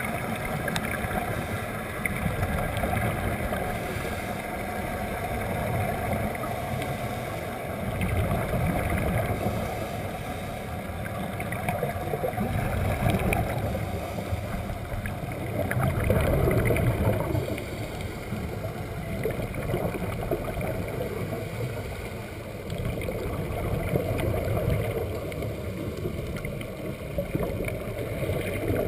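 Underwater rushing and bubbling of water, heard muffled through a camera's waterproof housing, with the bubbles of divers' scuba regulators. The noise swells and fades every few seconds.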